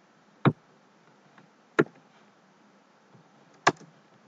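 Three sharp, single clicks of a computer's input controls, about half a second, nearly two seconds and nearly four seconds in, made while pasting text into a text editor.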